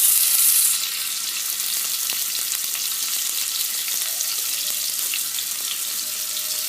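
Cheese-stuffed paneer slices shallow-frying in oil in a non-stick pan: a steady sizzle with faint crackles, louder for about the first second, then settling to an even level.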